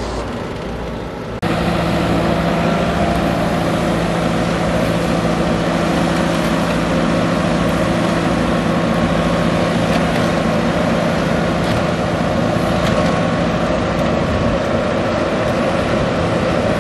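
Tractor engine running steadily under load while pulling a mounted reversible plough through the soil. The drone gets suddenly louder and closer about a second and a half in, then holds even.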